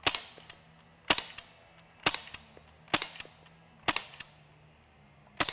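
HellBoy .177 CO2 BB air rifle firing steel BBs semi-automatically: six sharp pops about a second apart, each followed a moment later by a fainter click.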